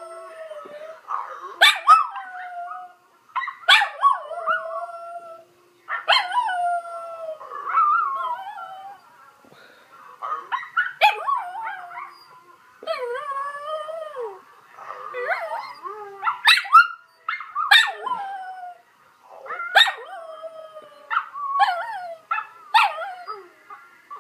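A small terrier howling in a string of wavering, sliding wails, one every second or two, each opening with a sharp yelp. She is howling along with a laptop recording of herself howling.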